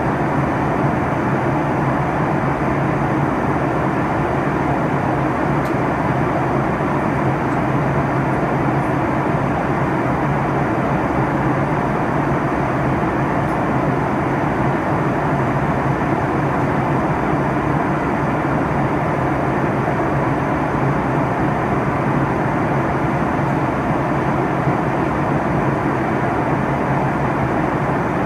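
Steady cabin noise of an airliner in flight: an even rush of engine and airflow noise with a low hum underneath, unchanging throughout.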